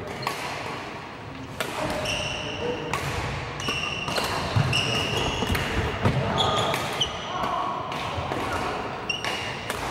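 Badminton rally: sharp strikes of rackets on the shuttlecock and players' footfalls, with frequent short high squeaks of court shoes on the wooden floor, echoing in a large hall.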